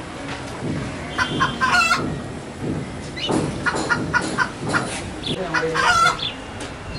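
Chickens clucking and calling in short, pitched bursts, once about a second in and again through the middle of the stretch.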